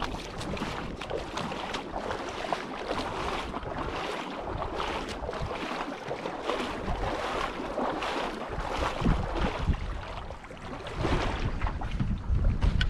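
Wind buffeting the microphone over the steady rush of river water, with stronger low gusts about nine seconds in and near the end.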